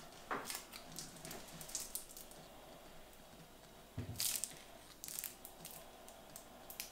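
Faint crinkles and clicks of a small cardboard juice carton being handled and turned over in the hands, with a soft knock about four seconds in.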